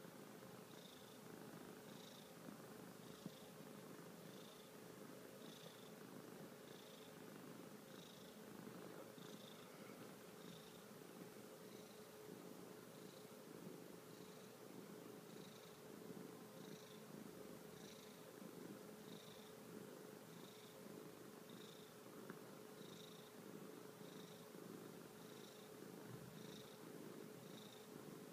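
Calico domestic cat purring softly and steadily, the purr swelling and easing about once a second with its breathing.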